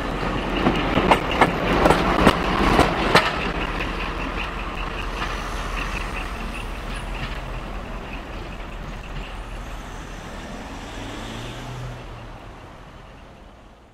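Model train running past on the layout: the wheels click over rail joints for the first few seconds over a steady running rumble, which then fades away.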